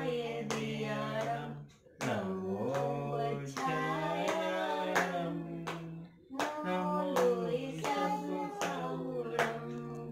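A voice singing a slow song with long held notes, accompanied by steady hand clapping that keeps the beat at about two claps a second.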